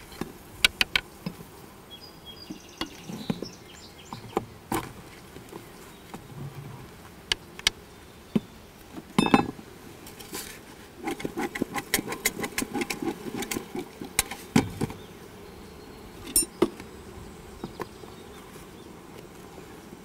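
Honeybees buzzing steadily around an open hive, with sharp clicks and scrapes of a metal hive tool against the wooden frames. A run of rapid scraping comes about halfway through.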